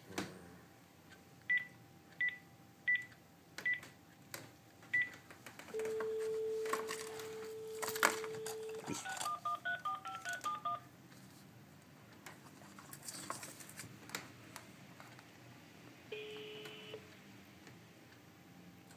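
Telephone sounds: five short high beeps, then a steady tone for about three seconds, then a quick run of touch-tone (DTMF) dialing beeps. A short tone comes again later, with light clicks in between.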